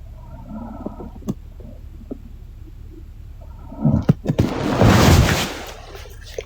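A sleeping woman snoring: one loud snore about four seconds in, lasting about a second and a half, preceded by faint breathing and a few small clicks.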